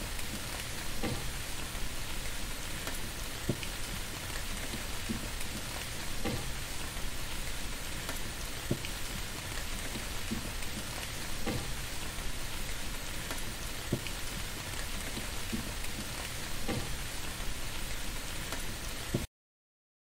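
Steady rain hiss with a faint tap about every two and a half seconds; it cuts off suddenly near the end.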